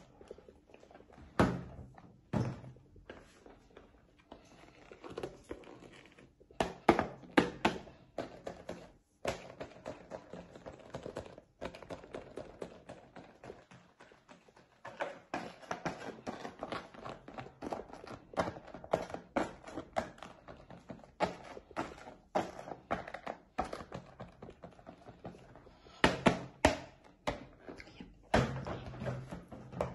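Irregular taps and thunks from rubber dinosaur hand puppets being handled, their jaws snapped and knocked against each other and the table, with the sharpest knocks about a second and a half in, around seven seconds and near the end.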